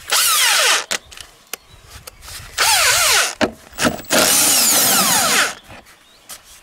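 Cordless impact driver spinning out the 10 mm bolts of an air filter box cover: three loud runs, the last the longest, each falling in pitch.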